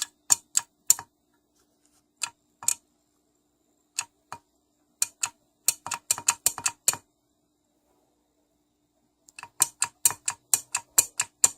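Sharp clicks from small engine parts being handled, in irregular groups with two fast runs of clicks in the middle and near the end.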